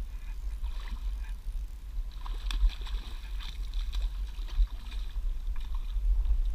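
A hooked fish splashing at the water's surface as it is reeled in toward the bank, the splashing strongest from about two seconds in until past the middle. A steady low rumble runs underneath.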